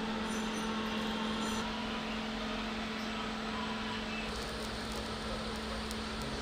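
TIG welding set running during welding: a steady electrical hum over a hiss, with a faint crackle about two-thirds of the way through.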